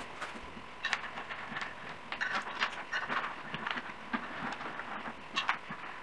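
Black metal chair legs and their screws being fitted by hand to the underside of an upholstered dining chair seat: irregular small metallic clicks, taps and rattles.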